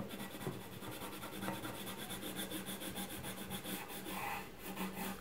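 Colouring pencil rubbing on paper in quick back-and-forth strokes as an area is coloured in.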